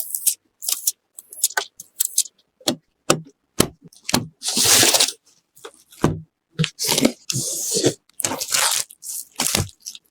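Hands handling parts while building a gaming PC: a string of sharp clicks and knocks, and several bursts of ripping, the longest about a second long, about four seconds in.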